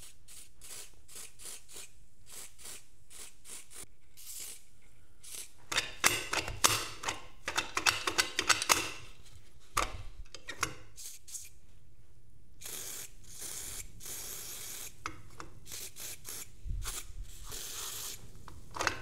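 Aerosol white grease sprayed through a straw into a tailgate latch mechanism in several hissing bursts, one lasting about two seconds, with sharp metallic clicks as the latch is worked in between.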